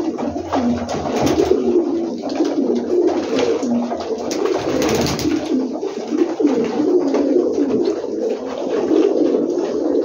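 A flock of domestic pigeons cooing continuously, many birds' low calls overlapping.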